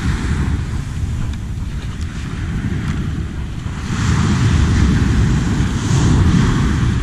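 Wind buffeting the microphone over small waves breaking and washing up a sandy beach; the surf hiss swells louder about four seconds in and again near the end.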